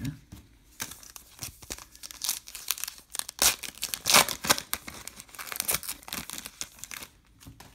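Silver foil wrapper of a trading card pack being torn open and crinkled by hand, in a long run of sharp crackles that peaks a little past the middle.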